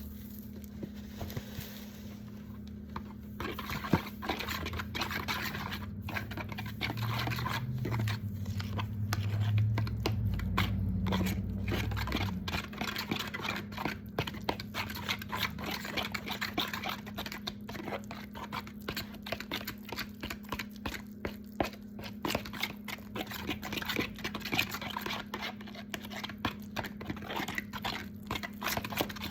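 Microwave oven running with a steady low hum, with a scatter of clicks, clinks and scrapes from dishes and utensils being handled; a deeper rumble swells for a few seconds about a quarter of the way in.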